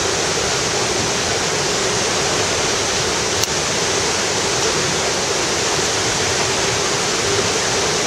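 Steady rushing of fast-flowing river water below the falls, an even hiss with no let-up. A single short click about three and a half seconds in.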